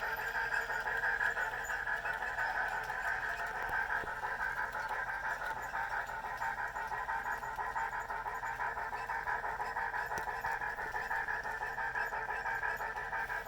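Model steam locomotive's DCC sound decoder playing rapid, steady steam chuffing through the locomotive's small onboard speaker as the 4-8-4 Niagara runs.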